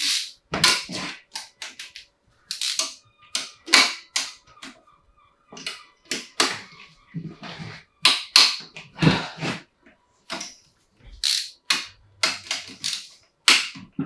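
Irregular sharp metallic clinks and knocks of hand tools and parts being handled on a BMW M50B25 engine during disassembly, several strikes a second at times with short pauses between.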